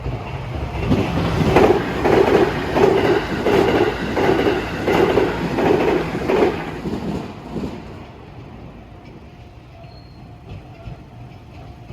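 A JR Kyushu 787 series limited express train running past at the level crossing. Its wheels clatter over the rail joints in a regular rhythm, about every two-thirds of a second, and the sound fades away about eight seconds in.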